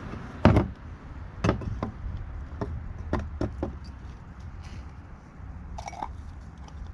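Knocks and light clatter of an oil filter and filter housing being handled and set against a plastic drain pan: one loud knock about half a second in, then a string of lighter knocks over the next few seconds, over a steady low rumble.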